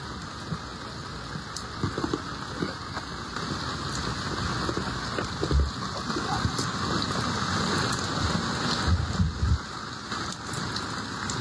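Steady hiss of water, growing louder toward the middle, with scattered low thumps and knocks.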